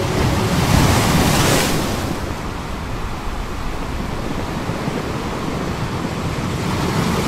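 Surf washing onto a sandy beach. A wave breaks and rushes up the sand about a second in, then the wash settles into a steady hiss.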